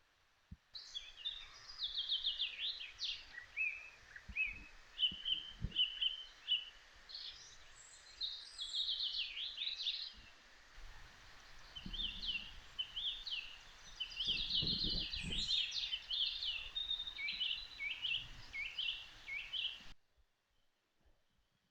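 Several birds chirping and singing in quick, overlapping calls over a steady background hiss, with a few low thuds. It starts abruptly about a second in and cuts off abruptly near the end.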